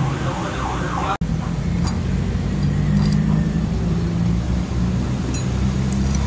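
A machine running with a steady low hum, broken by a sudden short cut about a second in.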